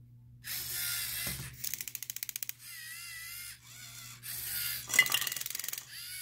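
LEGO Mindstorms EV3 robot arm's servo motors whirring in several short bursts as the arm turns and swings, with runs of rapid gear ticking in between. A sharp click about five seconds in is the loudest sound.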